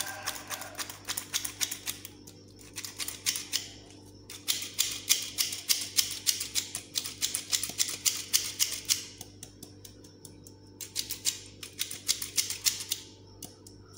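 Hand-operated metal flour sifter clicking rapidly as it sifts flour, about five clicks a second, in several runs with short pauses between.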